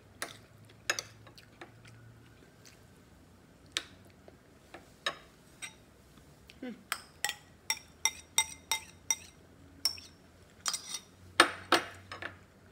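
Metal spoon clinking and scraping against ceramic bowls. The sharp clinks come sparsely at first, then in a quick run of ringing taps in the second half.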